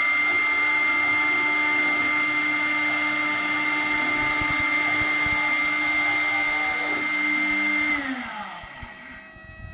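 CNC router's high-speed spindle running with a steady high whine, then winding down, falling in pitch and level, from about eight seconds in as it is switched off. A quieter steady hum carries on after it.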